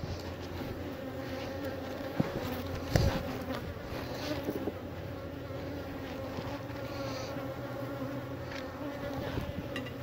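Honeybees buzzing around an open hive, a steady hum, agitated enough that the beekeeper says they are getting angry. A single knock about three seconds in.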